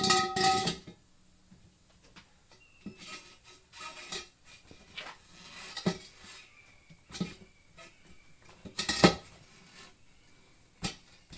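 Metal hand tools clanking against the wheel and rim during a manual tire mount: a ringing metallic clank at the start, a series of smaller knocks and scrapes, and another loud ringing clank about nine seconds in.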